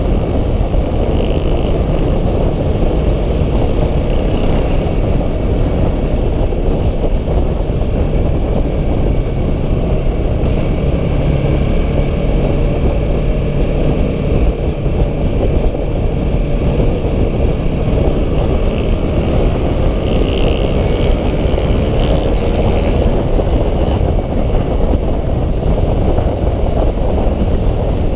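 Yamaha R3's parallel-twin engine running at a steady cruise, under heavy wind rush on the on-board camera's microphone at road speed.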